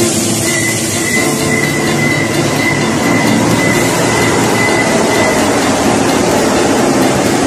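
Mexico City Metro Line 1 train, a rubber-tyred metro train, running past along the station platform with a loud, steady rumble. A steady high squeal rides over it from about half a second in and stops about five seconds in.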